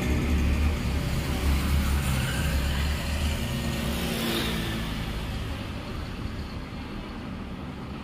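A motor vehicle's engine running close by, a steady low rumble that slowly fades away.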